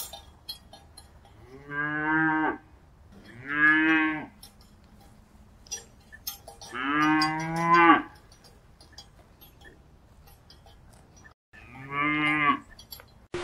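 Cattle mooing: four short, low calls a few seconds apart, the third the longest, with faint ticks between them.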